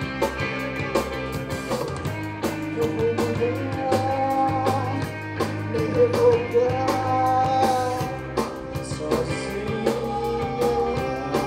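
Live rock band playing: distorted electric guitars, bass and a drum kit keeping a steady beat, with a voice singing a melody from about two seconds in.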